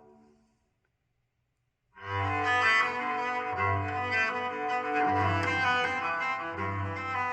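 Built-in alarm melody of an LG-T390K Wine 3G mobile phone: an instrumental tune with string-like sounds over a low bass note that repeats about every one and a half seconds. It starts about two seconds in, after the previous tone fades out into a short silence.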